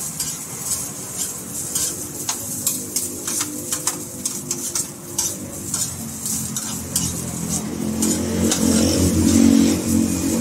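Metal tongs clinking and scraping in a frying pan as shaved kebab meat is stirred and fried over a gas burner, with a light sizzle. A low hum swells in the second half, loudest near the end.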